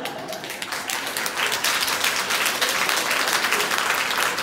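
Audience applauding, the clapping swelling about a second in and then going on steadily.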